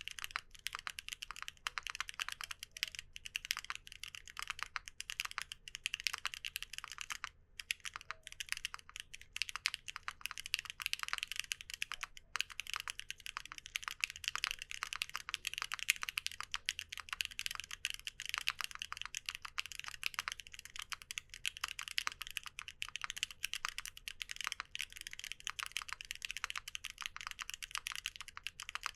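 Fast continuous typing on a mechanical keyboard fitted with WEKT XCJZ Green Mustard Plus linear switches (PP top housing, POM stem): high-pitched, clacky keystrokes with brief pauses about seven and twelve seconds in.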